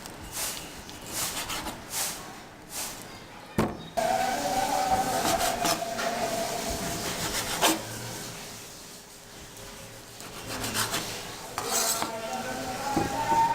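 A cooking utensil scraping and stirring in a pot, in a run of short strokes, with a steadier sound carrying held tones from about four seconds in.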